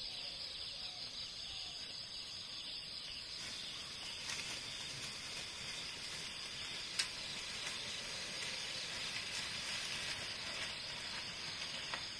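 A steady, high-pitched drone of forest insects, with one sharp click about seven seconds in.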